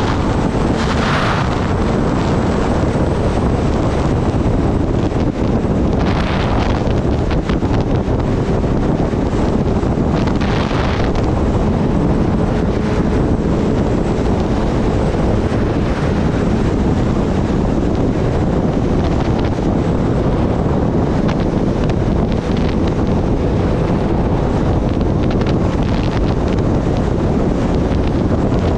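Heavy wind rushing over the microphone of a sport motorcycle ridden at highway speed, with the engine running steadily underneath. A few brief swells of higher hiss come and go in the first dozen seconds.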